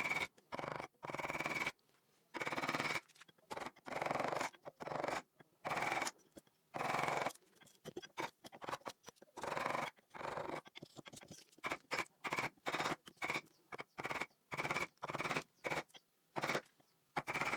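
Hand carving tool scraping and cutting into wood in quick repeated strokes, each lasting under a second, with brief pauses between them.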